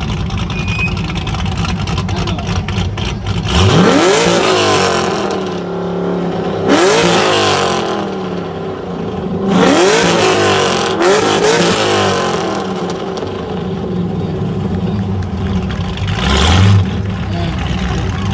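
Car engine revved repeatedly: four sharp blips, each a quick rise in pitch, over a steady rumble, then a shorter burst near the end.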